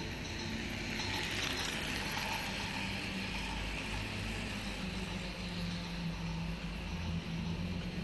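Toy train running on plastic track, a mechanical running sound that is loudest for a second or so about a second in, then settles into a steady low hum.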